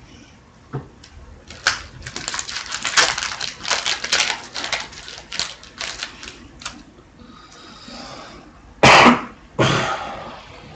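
Trading-card pack wrappers being torn open and the cards handled: a run of quick crinkling, clicking rustles for several seconds. Then a loud double cough near the end.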